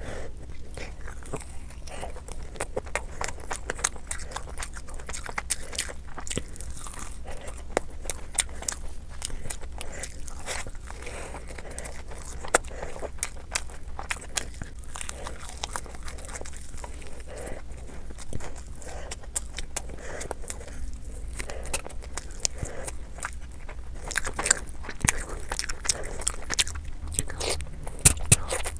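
Close-miked chewing and mouth sounds of a person eating spicy instant noodles and fried chicken, with many short, sharp, wet smacks and clicks, busier near the end.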